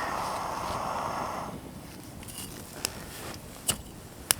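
Backpacking stove burner hissing steadily, then shut off about a second and a half in once the water is boiling. After that, three sharp pops from the campfire.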